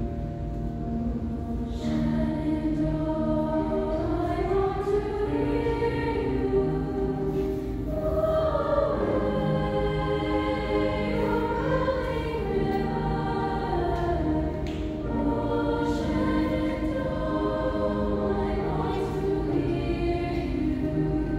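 A mixed choir of young men and women singing in parts, holding long chords that shift slowly from note to note.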